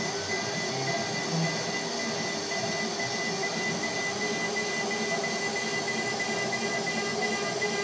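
CNC router spindle running with a steady high whine as its bit mills across a wooden board, over a continuous rushing cutting noise.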